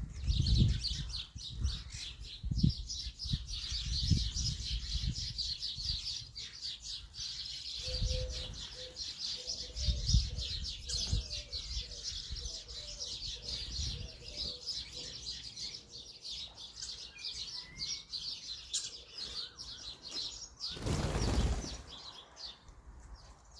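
A crowd of small garden birds chirping rapidly and continuously at a feeder, with wings flapping and low thuds among them. A short run of lower notes comes in about a third of the way through, and a loud rush of noise, like a burst of wingbeats, comes near the end.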